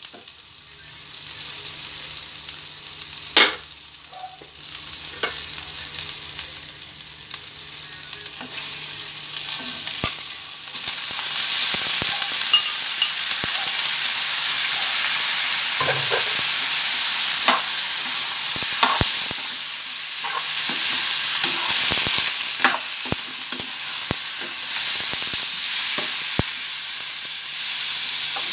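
Sliced pork frying with onions and garlic in a pan, sizzling steadily, the sizzle growing louder about ten seconds in. A metal spatula scrapes and clicks against the pan as it is stirred.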